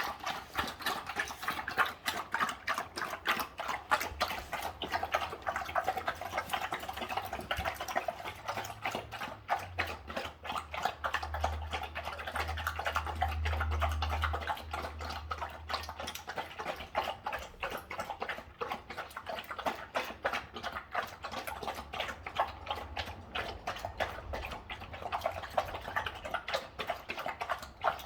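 Golden retrievers eating their dinner from a bowl: rapid, continuous crunching and chewing.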